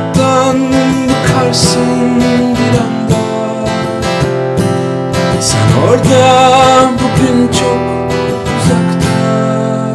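Background music led by strummed acoustic guitar, starting to fade near the end.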